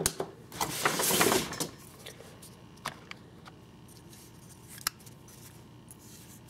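Handling of an Mtech MT740EM rescue linerlock folding knife: a click, about a second of scraping and rustling, then a few single sharp clicks.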